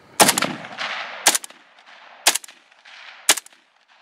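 Polish-pattern AK rifle firing four single shots about a second apart, each crack followed by a trailing echo.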